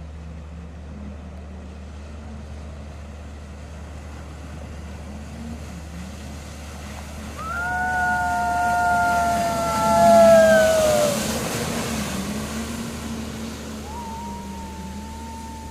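Jet ski engine running steadily. A whine swells about seven seconds in, peaks and drops slightly in pitch by about eleven seconds as a craft goes by, and a shorter falling whine follows near the end.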